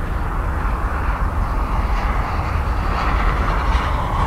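Twin rear-mounted turbofan engines of a regional jet at takeoff power, an even rushing engine noise that grows louder over the last second or so as the jet rotates and lifts off. Heavy wind buffets the microphone with a constant low rumble.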